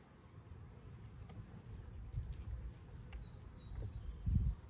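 Steady high-pitched chorus of insects, typical of crickets, over a low rumble, with a dull thump near the end.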